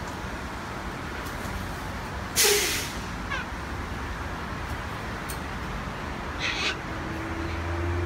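Sulphur-crested cockatoos giving harsh screeches: a loud one about two and a half seconds in and a shorter, weaker one near six and a half seconds, over a steady hum of traffic.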